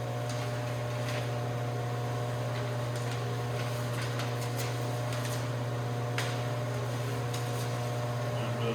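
Steady low machine hum with a few faint light clicks scattered through it.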